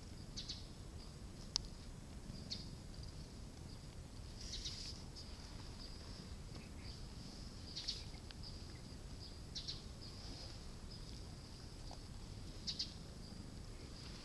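Night insects chirping in a steady high trill, with louder chirps every few seconds. A single sharp click stands out about a second and a half in.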